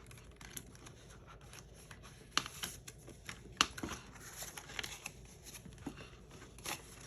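Paper banknotes being handled and slipped into a cash envelope: short, scattered crisp rustles and light clicks of paper.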